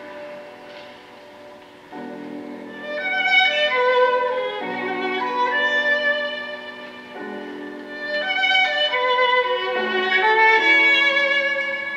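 Violin music played back through a single-ended valve amplifier with Cunningham CX-345 (type 245) output tubes. The bowed violin notes are sustained over accompanying notes, quiet at first and swelling louder after about two seconds.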